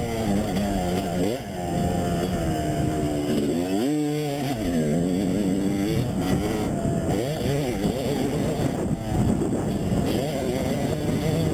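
Motocross dirt bike engines revving up and down, the pitch climbing and dropping again and again with throttle and gear changes. In the second half several bikes overlap.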